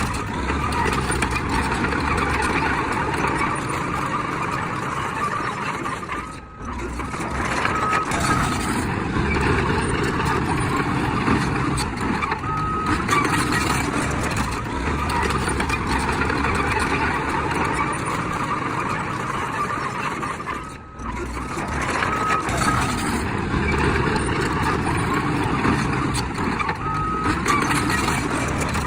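Heavy diesel earthmoving machinery running steadily, with short high reversing beeps in pairs every few seconds. The sound dips sharply twice, about a third of the way in and again about two thirds in.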